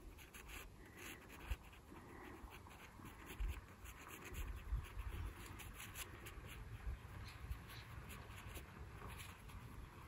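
Pencil scratching faintly on cold-press watercolor paper in many short strokes, sketching tree trunk lines.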